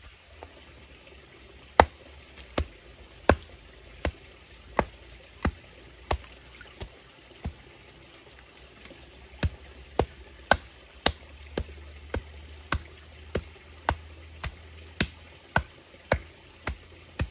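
A tool striking bamboo in steady, evenly paced blows, about three every two seconds. The blows stop for about two seconds near the middle, then start again a little faster.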